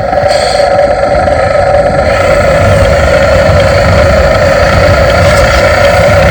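Radio-controlled dump truck running: a steady, loud high whine with a low rumble underneath that grows about two and a half seconds in.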